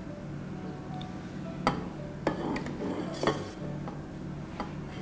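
Metal ladle knocking and scraping against a stainless-steel pot while thick apricot pudding is ladled out, with three sharp clinks about a second apart over a faint steady hum.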